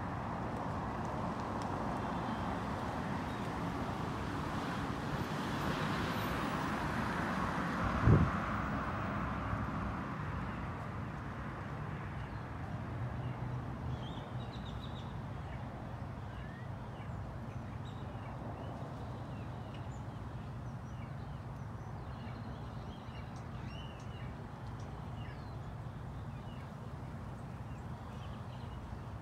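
Outdoor background of a steady low traffic hum, with a vehicle passing and fading over the first ten seconds and a single low thump about eight seconds in. Small bird chirps come through in the second half.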